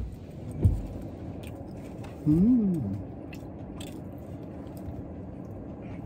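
Steady low hum inside a car cabin, with faint eating noises from plastic spoons, cups and chewing. A soft thump comes just under a second in, and a short hummed 'mmm' rises and falls about two and a half seconds in.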